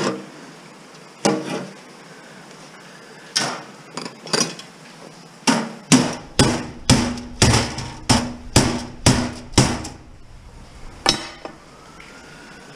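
Hammer striking the sheet-steel parts of a computer case. A few scattered blows come first, then a quick run of about ten at roughly two a second with a metallic ring, and one last blow near the end.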